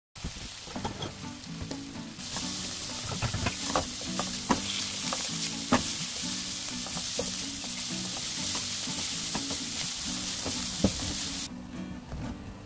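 Ground pork and sliced red chili sizzling in a frying pan, stirred with a spatula that taps and scrapes against the pan. The sizzle starts about two seconds in and cuts off near the end. Soft background music plays underneath.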